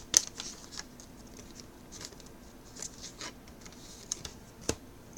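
2016 Donruss baseball cards being handled and flipped through: soft papery swishes and light clicks, with a sharper click just after the start and another near the end.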